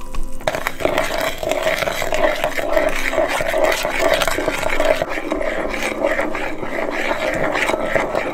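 Metal spoon stirring milk and dry yeast in a plastic mixing bowl, scraping and clicking quickly and continuously against the bowl's bottom and sides; it starts about half a second in.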